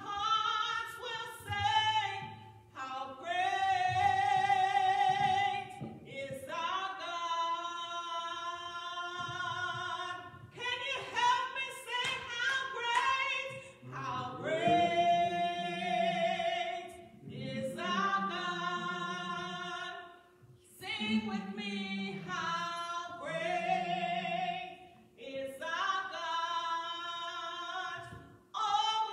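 A woman singing a gospel song, holding long notes with a wide vibrato.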